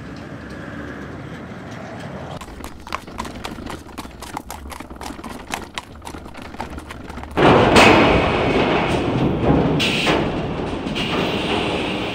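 Horse hooves and cart wheels clattering on cobblestones: a run of irregular sharp knocks. About seven seconds in, a louder, dense rushing noise takes over.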